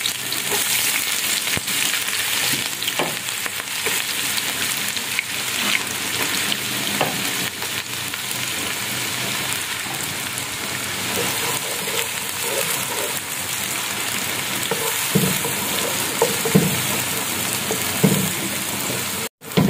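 Chopped onions sizzling steadily in hot oil in a nonstick wok. In the last few seconds a wooden spatula stirs them, scraping and knocking against the pan.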